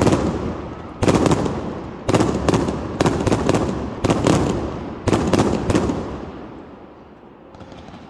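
A ground-launched consumer fireworks cake firing about one shot a second, each shot bursting low overhead in a cluster of sharp cracks. There are six volleys, and then the crackle fades out over the last two seconds.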